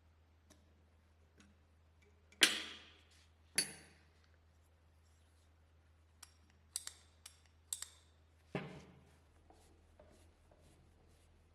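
About seven scattered clinks and knocks of small hard parts or hand tools being handled and set down, the loudest about two and a half seconds in, over a faint steady low hum.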